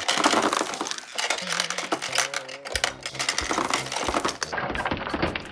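Rapid clicking and clattering of a plastic toy parking garage being handled: its locked door is worked with a toy key and swung open.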